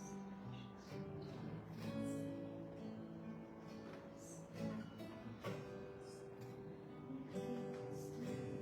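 Acoustic guitar strumming slow, sustained chords, a quiet instrumental passage of a worship song.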